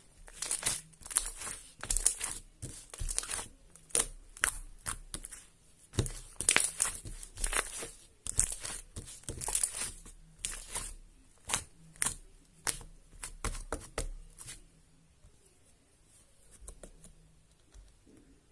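Glitter slime being squished and stretched by hand, giving repeated clusters of sticky, crackly clicks that stop about fifteen seconds in.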